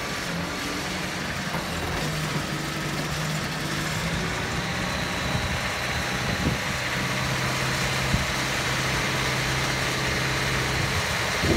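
Engine of a three-wheeled truck-mounted forklift running steadily while its hydraulics raise the forks and mast. A high steady whine joins the engine about halfway through.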